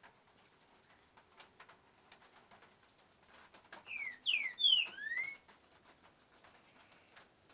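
A caged trinca-boiadeiro songbird sings one short phrase of four or five loud slurred whistles, each sweeping up or down, about four seconds in. Faint scattered clicks and taps run through the rest.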